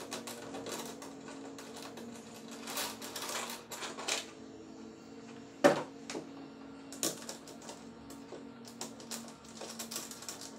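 Irregular small clicks and taps of a washer and nut being fitted by hand onto the mounting screws from under a plastic kayak deck, with one sharp click a little past halfway.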